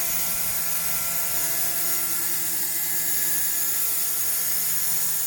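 Electronic condensate drain (eco drain) on the Alup COMBI GE 15's air dryer blowing off: a steady hiss of compressed air and condensate being released, over the steady hum of the 11 kW screw compressor running.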